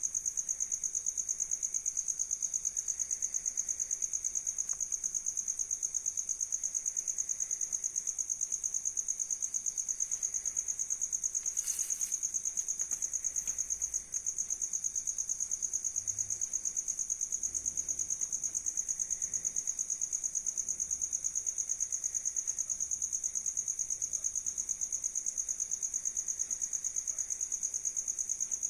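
Insects trilling: a steady, fast-pulsing high-pitched chirp that never lets up, with one brief click near the middle.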